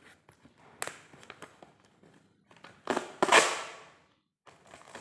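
Scissors cutting the packing tape on a cardboard box and the box being torn open: a sharp snip about a second in, then a loud tearing rustle of tape and cardboard lasting about a second, and a softer rustle near the end.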